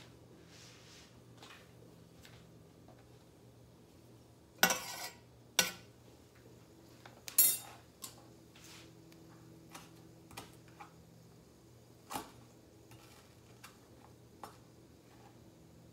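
Kitchen utensils and cookware clattering: three sharp metallic clatters a few seconds in, then a few lighter knocks, over a low steady hum.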